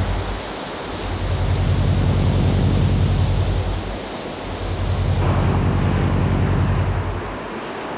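Ocean surf washing in, swelling and fading about every three and a half seconds, over a steady low hum.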